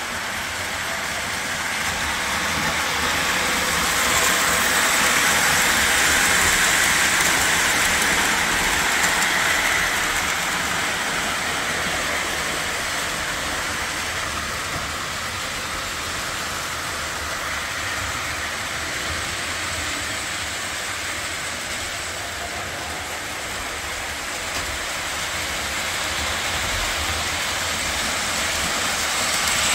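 Lionel O-27 toy train running on tinplate track with a steady rumble and rattle of wheels and motor. It grows louder as it nears in the first few seconds, fades as it goes round the layout, and grows louder again near the end.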